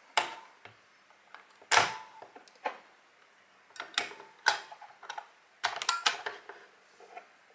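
C-size batteries being fitted one by one into the plastic battery compartment of a Sony EBP-9LC dock: a string of sharp, irregularly spaced clicks and knocks, with a quick cluster of clicks about six seconds in.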